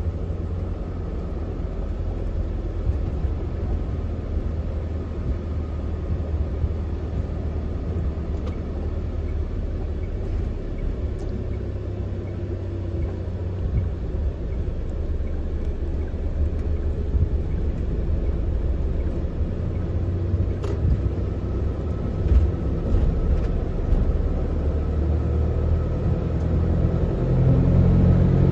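A 4-tonne truck's diesel engine running steadily with a low rumble, getting louder and rising slightly in pitch near the end.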